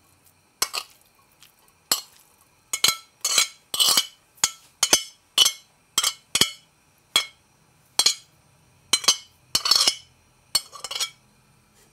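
Metal spoon clinking against a ceramic bowl while scooping shredded chicken out of it: a long uneven run of sharp, ringing clinks, about two a second.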